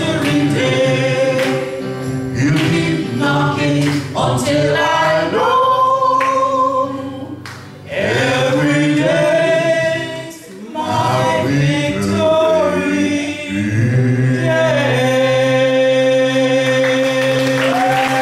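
A small group of voices singing a gospel song together in harmony, ending on one long held chord.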